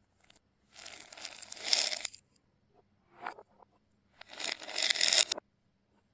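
Small hard objects rattling and scattering, played in reverse: two rushes that swell louder and then cut off abruptly, with a short burst between them.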